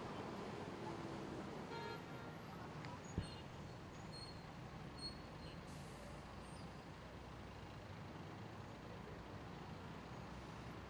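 Distant city traffic: a steady hum of cars and buses, with a brief horn toot about two seconds in and a single sharp click a little after three seconds.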